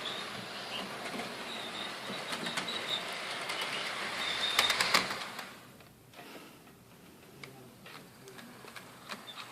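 Hornby OO-scale model train running on the track: a steady whirring rush from the locomotive and wheels, with short high squeaks that come from two of the coaches, not the engine. The sound fades away about five and a half seconds in, leaving only faint clicks.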